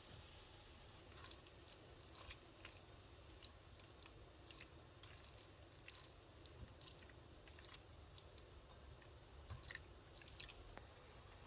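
Near silence with faint, scattered small clicks and crackles at irregular intervals.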